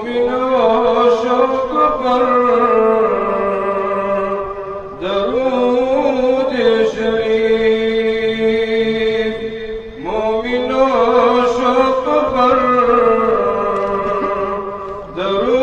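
A solo male voice performing Islamic devotional chanting in three long, melismatic phrases with brief breaths between them, the pitch wavering through ornaments.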